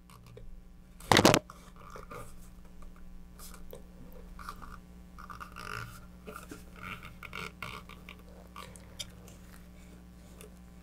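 Fiberglass rocket airframe being handled and turned on a cutting mat to spread poured epoxy around the aft centering ring. A short, loud scraping clatter comes about a second in, followed by soft scattered rubbing and tapping.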